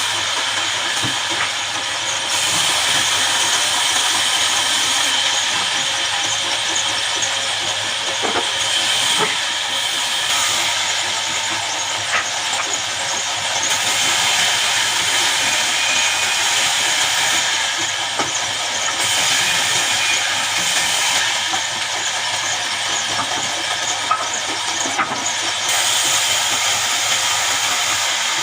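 Horizontal band sawmill running, its band saw blade cutting through a jackfruit log with a steady, loud hiss over a low machine hum, broken now and then by a sharp click.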